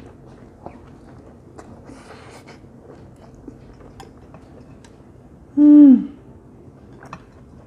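A man chewing a mouthful of instant noodles, with faint wet mouth clicks. Near the end he lets out one short closed-mouth "hmm" of enjoyment that falls in pitch.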